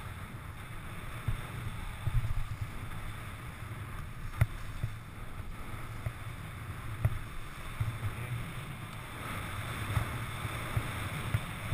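Wind buffeting a head-mounted camera's microphone during a fast ski descent, with the skis hissing and scraping over packed snow, the hiss louder near the end. Two sharp knocks, about four and seven seconds in.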